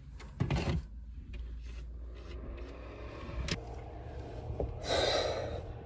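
Handling sounds: a sharp knock and clatter about half a second in, a few light clicks, then a rustle of bedding and pillows being shifted near the end, over a low steady hum.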